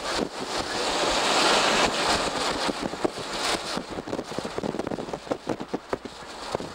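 Wind rushing over the camcorder microphone and road noise from a vehicle moving along the highway. From about halfway through, a run of irregular short pops and buffets comes through.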